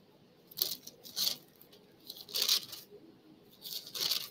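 Four short scratchy rustling noises, spaced about a second apart, with no voices in between.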